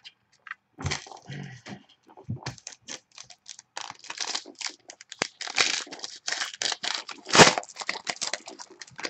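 Foil trading-card pack being torn open and its wrapper crinkled: a long run of crackling rustles, with the loudest rip about seven and a half seconds in.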